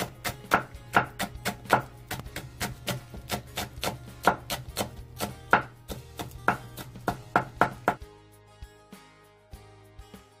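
Chef's knife slicing green onion into thin rings on a wooden cutting board: quick, even chopping at about four strokes a second that stops about eight seconds in, followed by only a few scattered knocks of the knife.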